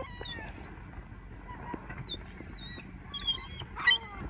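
Several seagulls calling, short high squealing calls overlapping one another, with the loudest cluster near the end.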